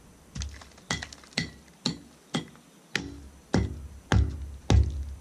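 Electronic background music with a steady beat of about two strikes a second; the deep bass thins out early on and comes back in about three seconds in.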